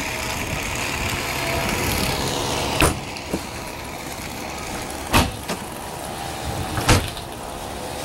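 Steady vehicle noise, broken by three sharp knocks about two seconds apart.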